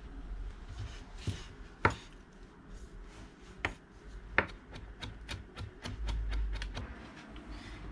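Chef's knife chopping fresh herbs on a wooden cutting board: a few separate sharp knocks, then a quick run of lighter chops, about four or five a second, in the second half.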